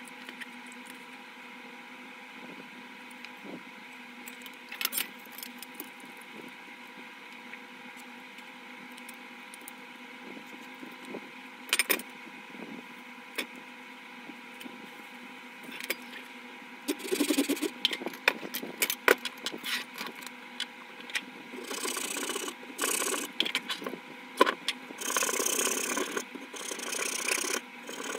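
Small hacksaw cutting a thin wooden stick held in a vise, in runs of rasping back-and-forth strokes that start about two-thirds of the way in. Before that there are only scattered light clicks of handling and pen marking over a steady background hum.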